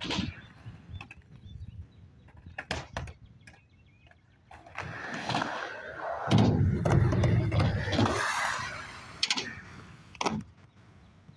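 Skateboard wheels rolling, a rumble that swells for a few seconds as the board comes closer, then sharp clacks near the end as the board pops and hits the metal ramp.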